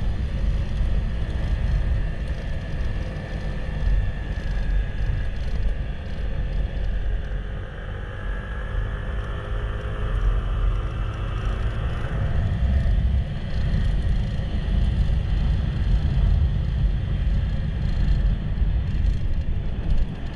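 Steady low rumble of a moving vehicle, with a fainter engine note drifting in pitch around the middle.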